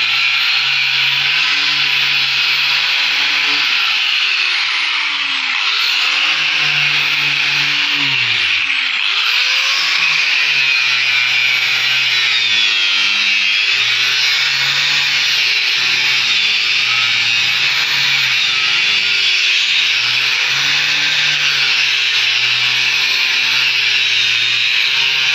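Handheld electric disc sander running against wood, sanding a door frame with a steady high whirring hiss. Its whine dips briefly twice, about five and nine seconds in. Background music plays underneath.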